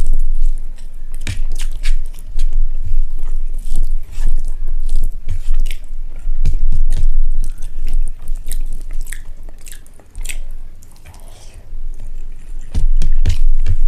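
Close-miked chewing of rice and egg curry: wet mouth clicks and smacks coming irregularly, with a quieter spell about two-thirds of the way through.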